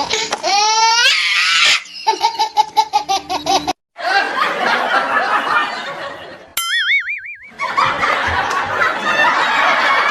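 Dubbed-in laughter sound effects: a rhythmic, pulsing laugh, then, after an abrupt cut, a crowd laughing. The crowd laughter is broken about seven seconds in by a brief warbling comedy tone.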